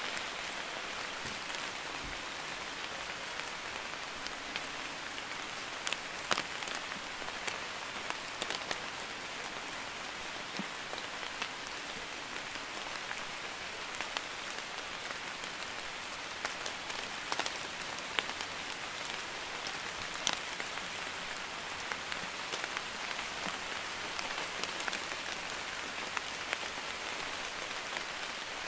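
Light steady rain falling, an even hiss of rain with single drops splashing sharply now and then.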